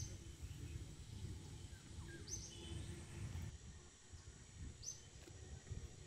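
Rural outdoor ambience: a bird gives a short high chirp three times, about every two and a half seconds, over a low steady rumble.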